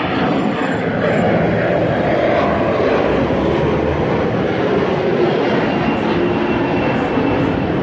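Airplane flying over, its engine noise swelling over the first second and then holding loud and steady.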